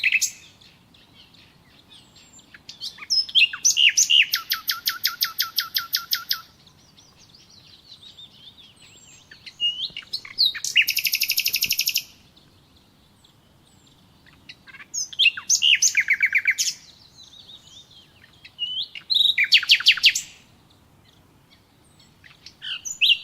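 A songbird singing: four loud bouts of rapid trills, each two to three seconds long, a few seconds apart, with short single chirps in between.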